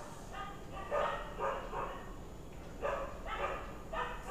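An animal's short, pitched yelping calls, about six of them, some in quick pairs with gaps between.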